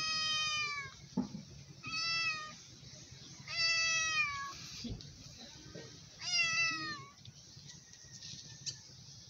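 A hungry stray tabby cat meowing for food: four drawn-out meows a second or two apart, each dropping in pitch at its end, and then no more calls for the last couple of seconds.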